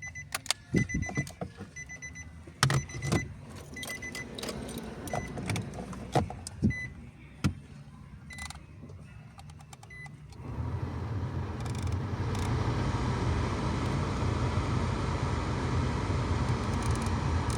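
Clicks and knocks of the climate control panel being handled, with a string of short electronic beeps, then about ten seconds in the Nissan Sentra's AC blower fan starts and runs with a steady whoosh that builds over a second or two. This is the test of the control panel's repaired fan-speed potentiometer.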